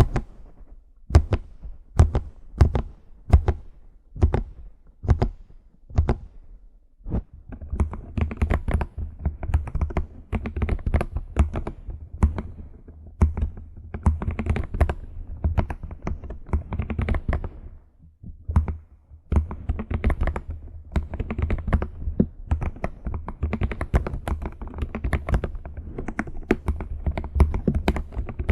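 Computer keyboard keys being tapped: slow single key presses about two a second, then, from about seven seconds in, fast continuous typing with a short break a little past the middle.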